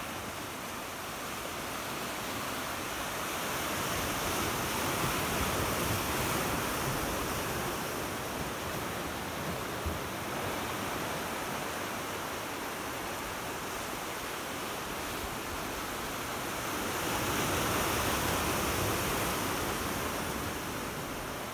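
Sea surf washing against the shore, a steady rush that swells and eases twice.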